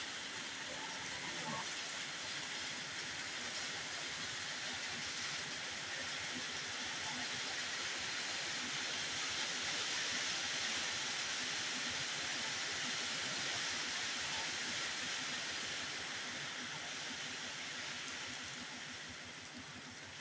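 Steady rain falling on wet ground, puddles and a flooded road: an even hiss that grows a little heavier midway and eases near the end.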